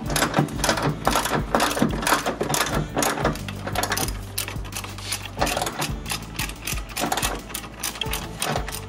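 Hand socket ratchet clicking in quick runs of strokes as the engine mount bracket bolts are tightened, the clicks densest in the first few seconds.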